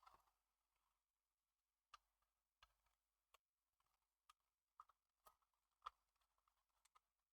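Near silence broken by faint, irregular small clicks and ticks, about one every half second: a screwdriver turning a small screw into plastic scale-model parts.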